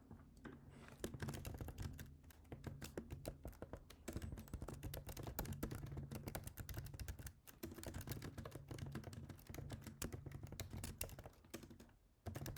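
Fast typing on a computer keyboard: a dense run of key clicks with a brief pause about halfway, stopping shortly before the end.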